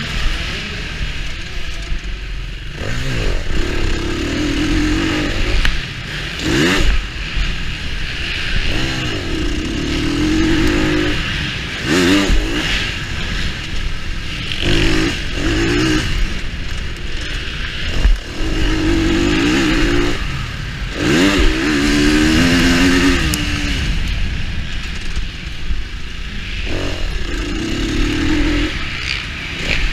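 2019 KTM 350 EXC-F dirt bike's single-cylinder four-stroke engine, heard from on board, revving up and falling back again and again as it is ridden hard from corner to corner of a dirt track.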